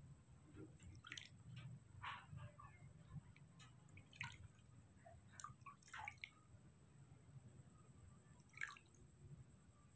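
Faint drips and small splashes of bath water in a plastic basin as water is cupped and poured by hand, coming as a scattering of short separate splashes.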